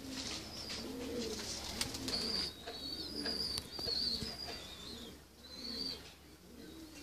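Domestic pigeons cooing over and over, low rolling coos one after another, with small birds chirping high above them.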